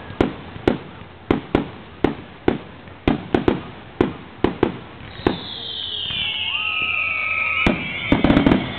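Fireworks going off in a display: a run of sharp bangs, about two a second, then from about five seconds in a long whistle falling slowly in pitch, ending in a quick cluster of bangs.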